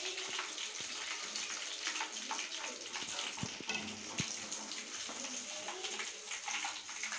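Hot oil sizzling and crackling steadily as chicken 65 pieces deep-fry in a pan, with two light knocks about three and a half and four seconds in.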